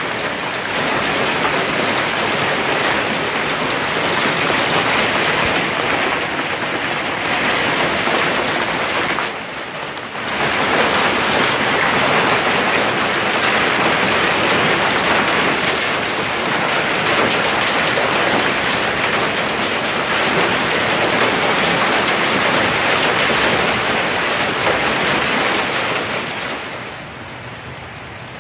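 Heavy hail mixed with rain pelting down on the yard, a dense and steady clatter. It drops out briefly about ten seconds in, and near the end it eases to softer, steady rain.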